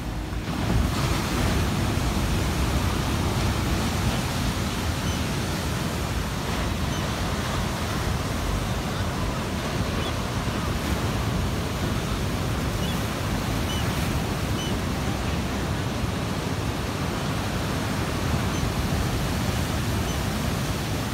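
Ocean surf breaking and washing in white foam against a rocky shore: a steady rush of waves, heaviest in the low end, that grows louder about a second in and then holds.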